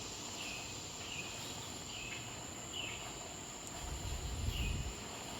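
Steady high-pitched insect drone from cicadas and other insects, with short bird chirps repeating about once a second. A low rumble comes in briefly about four seconds in.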